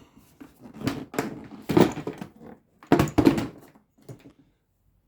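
Handling noises of a fuel line and its quick connector being worked against a fuel tank: a few short knocks and rustles about a second, two seconds and three seconds in.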